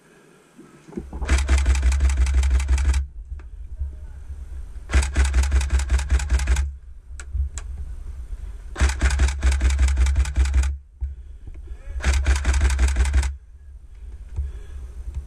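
Airsoft rifle firing four full-auto bursts, each one to two seconds long: a fast rattle of shots over a low motor hum, with short pauses between the bursts.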